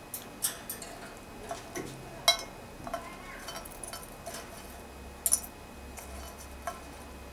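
Irregular sharp clicks and clinks of an African grey parrot's beak against a stainless steel bowl as it rummages in it, loudest about two seconds in and a quick double click about five seconds in.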